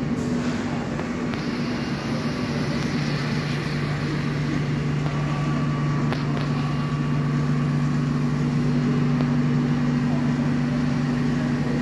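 Electric multiple-unit train at a station platform, its traction and onboard electrical equipment giving a steady low hum on two notes.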